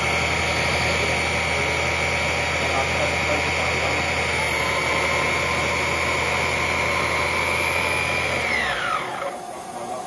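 Cordless stick vacuum cleaner running with its motorised brush head on: a steady high motor whine over a low hum, shifting slightly in pitch about four seconds in. Near the end it is switched off and the motor winds down with a falling whine.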